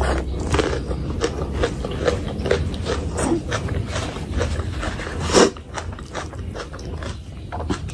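Close-miked chewing of a mouthful of rice and spicy curry: wet smacking and clicking of lips and tongue, with the squish of fingers working into curry-soaked rice. One louder smack comes about five and a half seconds in.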